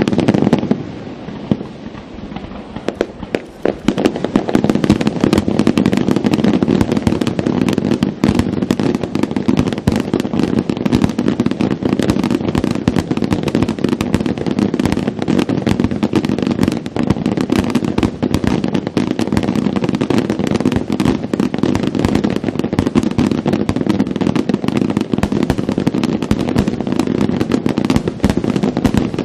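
Fireworks display: a dense, continuous barrage of shells bursting and crackling, after a brief lull about a second in that fills back up from about four seconds in.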